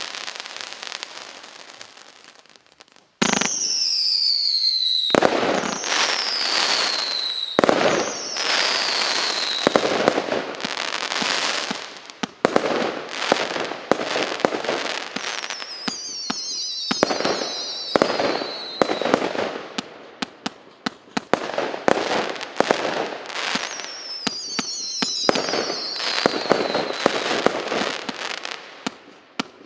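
A 186-shot, 0.8-inch consumer fireworks cake firing: a run of sharp launch pops and burst cracks with shrill whistling shots that fall in pitch, coming in several groups. The firing fades almost to nothing, then starts again loudly about three seconds in.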